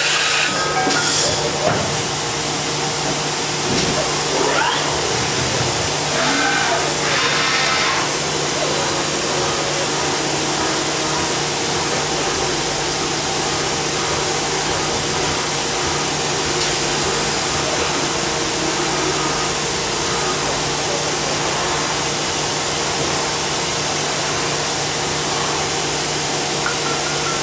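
Hitachi Seiki HG630 horizontal machining centre running: a steady hiss over a constant low hum, with a few short mechanical knocks in the first eight seconds or so.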